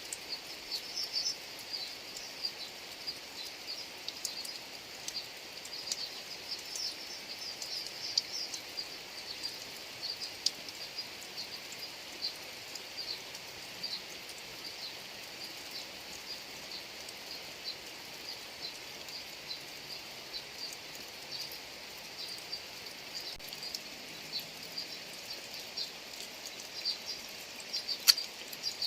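Steady rain falling, a continuous hiss with many short, high-pitched ticks and chirps scattered through it, and one sharp louder tick near the end.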